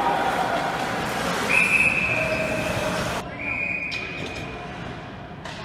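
A referee's whistle blown twice: two short, steady, high-pitched blasts about two seconds apart, over continuous background noise.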